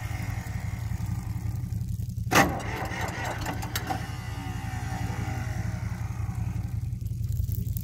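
John Deere 510 tractor's engine idling steadily just after a cold start. A single sharp clank about two and a half seconds in.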